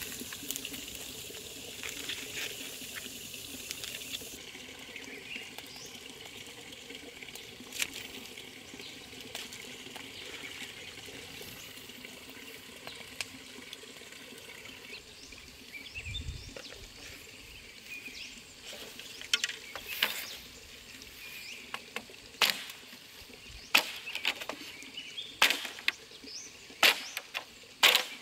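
Steady rush of stream water. From about two-thirds of the way through comes a string of sharp, irregular knocks: a blade chopping a bamboo pole.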